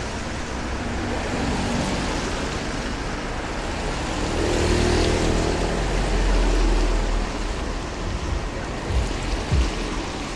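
Cars driving past on a wet road, their tyres hissing on the soaked surface, with one car passing close and loudest around the middle.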